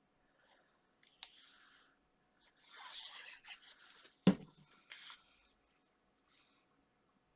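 Paper and card being handled on a craft table: soft rustling and sliding, with one sharp knock a little over four seconds in.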